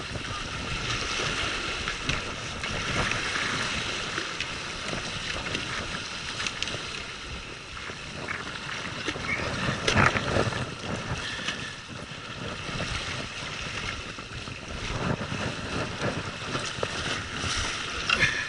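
Sea waves washing against shore rocks, with wind buffeting the microphone; a brief sharp sound stands out about ten seconds in.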